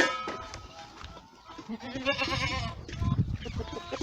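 Boer goats bleating, with a wavering call about two seconds in, and a sharp knock right at the start.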